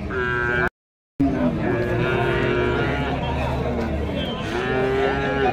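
Young calves bawling: several long, drawn-out moos, one sliding down in pitch. A brief dropout to silence falls just under a second in.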